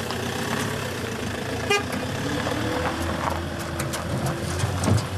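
Fiat Ducato double-cab pickup truck's engine running steadily as the truck drives off across a dirt yard, with a short toot about two seconds in.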